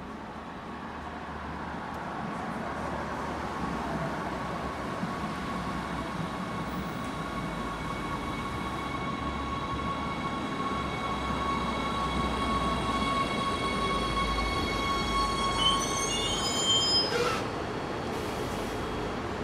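Forchbahn metre-gauge electric train pulling into the platform and braking to a stop, growing louder as it approaches, with a steady high whine. Just before it halts there is a short burst of wheel and brake squeals, which cut off as the train comes to rest.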